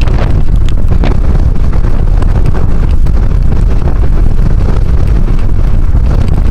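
Strong wind buffeting the camera microphone: a loud, steady low rumble.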